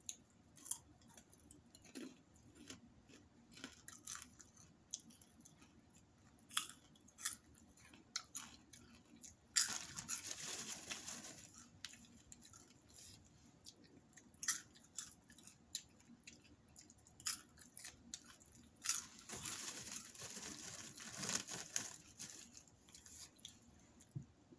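Popcorn being chewed in many short, crisp crunches. A large plastic popcorn bag crinkles twice, for a couple of seconds each, as a hand rummages in it: about ten seconds in and again near twenty seconds.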